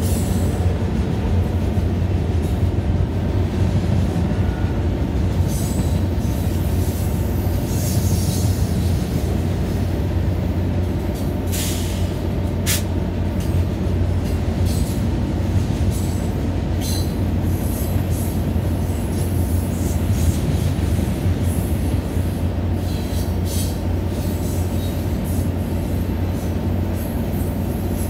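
Amtrak California diesel locomotive standing with its engine running, a steady low drone, close by. Brief high-pitched squeals of train wheels and metal come and go over it, with one sharp metallic clank about halfway through.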